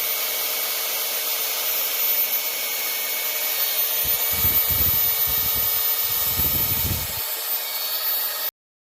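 A handheld power tool running steadily as it works on HDPE geomembrane liner, with two spells of lower rubbing about four and six and a half seconds in. It cuts off suddenly near the end.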